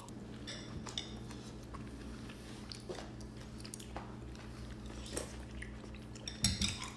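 Metal spoons clinking lightly against ceramic soup bowls with quiet chewing as two people eat sujebi soup; a handful of faint clinks spread through, over a steady low hum.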